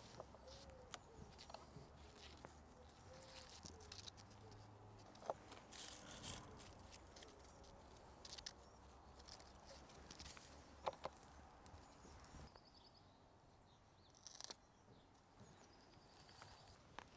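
Quiet garden ambience with faint birdsong and a few sharp snaps and rustles as plant stems are picked.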